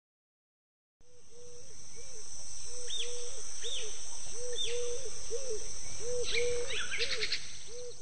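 A forest nature soundscape fades in after about a second of silence. It holds a steady high insect drone and short, low, repeated calls about twice a second, with bird chirps and quick trills that get busier near the end.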